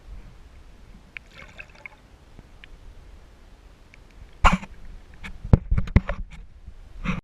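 Water noise with a low rumble, then a series of sharp knocks and clicks: one about four and a half seconds in, a cluster a second later, and one more at the very end.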